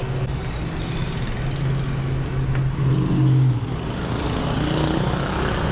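Street traffic, with a car engine running close by that is loudest about three seconds in.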